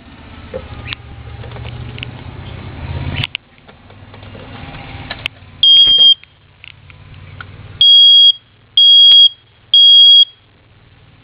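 Smoke alarm sounding during a test: one loud, high-pitched beep about six seconds in, then three more beeps about a second apart near the end, the smoke alarm's three-beep pattern. Before that, a low hum with scattered clicks stops about three seconds in.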